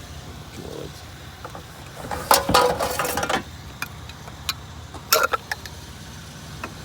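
Metal table legs clanking and rattling as they are handled: a longer ringing clatter about two seconds in and a shorter clank about five seconds in, over a steady low hum.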